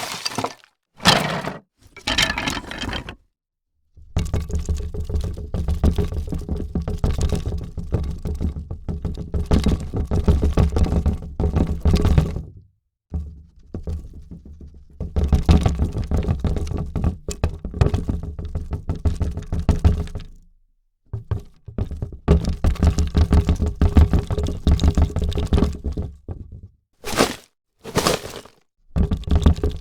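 A series of foley effects: a few short knocks at the start, then three long stretches of dense, rapid clattering and knocking, each several seconds long with short gaps between, and a few more single knocks near the end.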